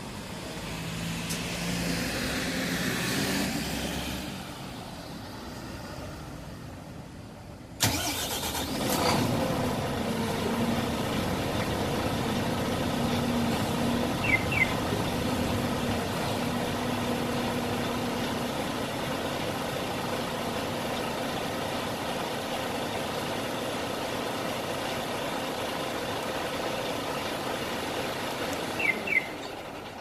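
Iveco Hi-Way truck's Euro 6 diesel engine being remote-started: it cranks and catches suddenly about eight seconds in, then idles steadily. A short double beep sounds twice over the idle, midway and near the end.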